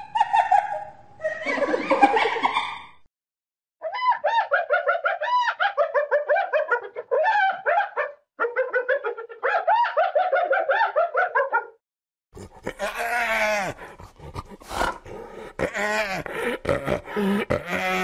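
Spotted hyena giggling: long runs of rapid, high, rising-and-falling yelping notes in separate bouts with short pauses between them. A couple of brief calls come first, and a denser, lower-pitched stretch of calls takes over about two-thirds of the way through.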